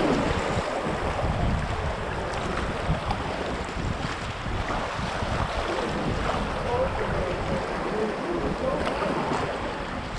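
River current swirling and rushing around a kayak as it paddles through boils and eddies, with wind buffeting the camera microphone.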